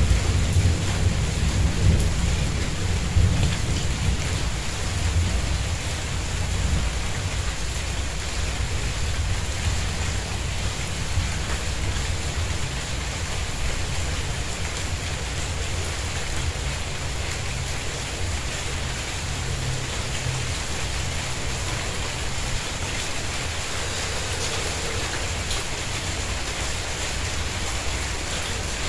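Steady rain falling on a tiled courtyard, an even hiss of drops. A low rumble of thunder in the first few seconds dies away.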